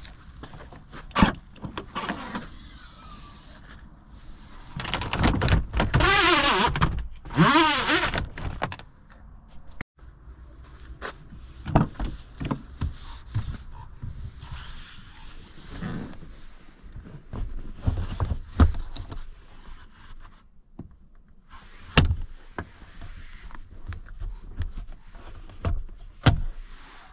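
Audi A4 B6 Avant's doors and handles being worked: repeated clicks and thunks as doors are opened and shut. About five seconds in there is a louder, wavering rubbing noise lasting about three seconds.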